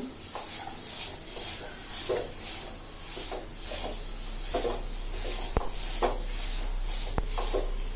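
Metal spoon stirring and scraping a thick dal-and-masala mixture around an aluminium kadhai in repeated strokes, with two sharp clicks of the spoon against the pan in the second half.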